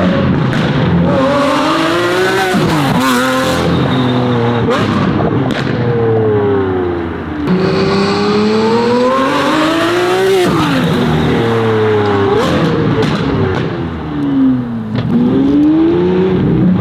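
Lamborghini Aventador SVJ's naturally aspirated V12, fitted with an aftermarket exhaust and test pipes, revving hard. Its pitch climbs and falls away several times, dropping sharply at each upshift.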